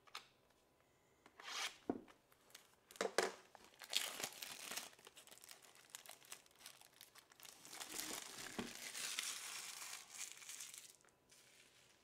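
Clear plastic shrink wrap being torn off a trading card box and crumpled. A few sharp crackles come first, then several seconds of dense crinkling that stops about a second before the end.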